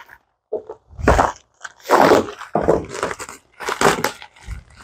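A packaging bag being crinkled and torn open by hand: a run of short, irregular crackling rustles with brief gaps between them.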